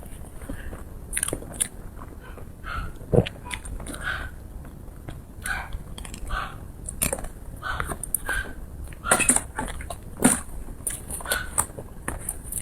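Close-miked eating: a person chewing and biting food, with irregular mouth clicks and smacks several times a second and a few louder clicks.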